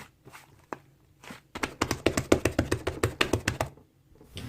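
Slime being squeezed and pressed by hand, giving a run of quick, sharp clicking pops with a few scattered clicks before it.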